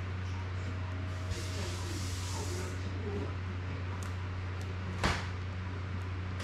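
Small clicks and rustling from hands working on a plastic FPV drone frame and its prop guards, with one sharper snap about five seconds in, over a steady low hum.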